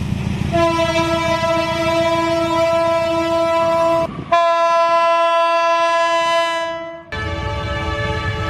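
Air horn of a CC201 diesel-electric locomotive (GE U18C) sounding a long, steady chord of several notes over the low rumble of the locomotive. It breaks off abruptly and sounds another long blast of about three seconds. Near the end a different horn chord comes in, again over locomotive rumble.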